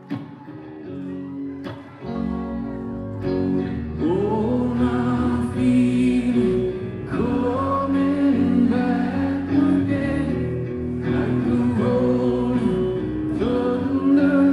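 Live rock band playing, recorded from within the audience: quiet guitar at first, the band coming in about two seconds in and getting fuller and louder about four seconds in, with a male lead voice singing over acoustic and electric guitars, bass and drums.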